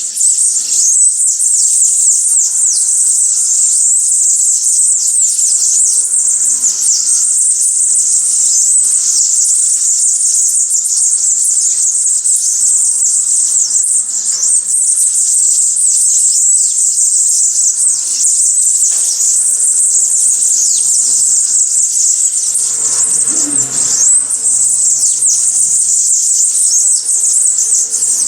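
A dense, steady chorus of high-pitched songbird chirping at a feeding spot, made of many short descending calls overlapping without a break. A brief lower sound comes about three-quarters of the way through.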